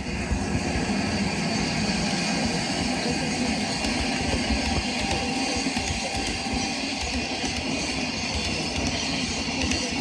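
Model train running on the layout under a KATO power pack: the wheels rolling on the track and the motor running, a steady even rumble.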